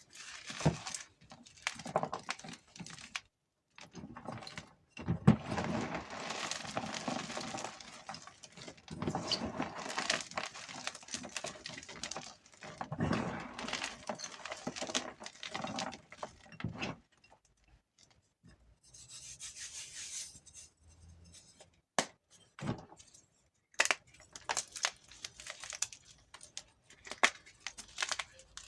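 Blocks of gym chalk being crushed and crumbled between the fingers: crispy crunching and crackling in runs of a few seconds, with a short lull a little past halfway and a few sharp snaps after it.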